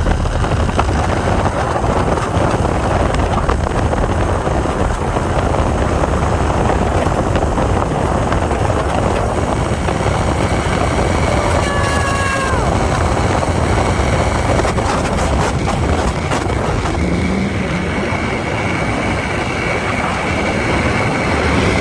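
Wind rushing over the microphone and a zipline trolley running along its steel cable during a ride, a loud steady rush. A thin steady high whine joins in the last few seconds.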